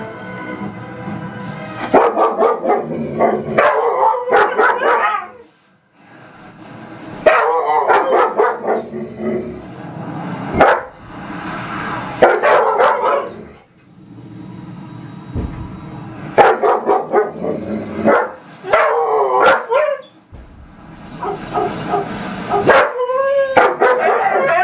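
Dogs howling together, with barks and yips mixed in. The howling comes in about five bouts of a few seconds each, with short pauses between them.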